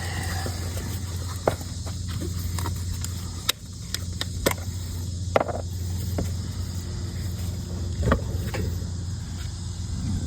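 A few sharp clicks and knocks, spaced a second or two apart, from handling the plastic funnel and oil bottle while getting ready to pour fresh oil into the ATV's engine. A steady low hum runs underneath.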